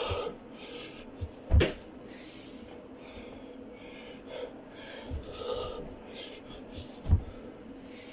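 Heavy, rasping breathing of a man doing burpees, with two thuds on the carpeted floor about five and a half seconds apart as he completes reps.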